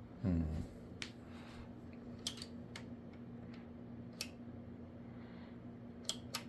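About six sharp, separate clicks of a desktop PC case's power button and switch being pressed, over a steady low hum. A brief, louder low sound comes near the start.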